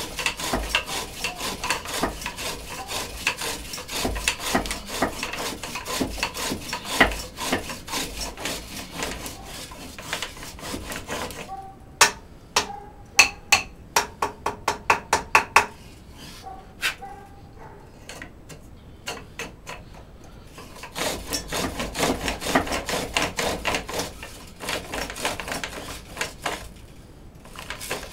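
Wood being bored on a foot-powered pole lathe with a spear-head bit: a dense, rapid scraping and knocking as the work turns back and forth against the bit. About twelve seconds in this gives way to separate sharp knocks and taps for some ten seconds, then the dense scraping starts again and stops shortly before the end.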